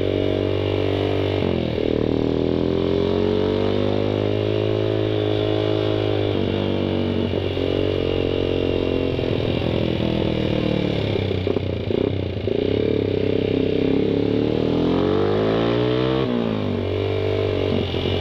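Suzuki Satria FU 150's single-cylinder four-stroke engine, fitted with a loud open aftermarket "brong" exhaust, accelerating through the gears. Its pitch climbs in long sweeps and drops sharply at each shift, about a second and a half in, again around six seconds, and near the end.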